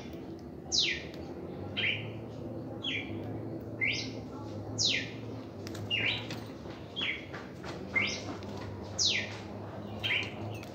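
Red-crested cardinal singing: loud, clear whistled notes about once a second, in a repeating pattern of short slurred notes, quick rising sweeps and longer falling sweeps.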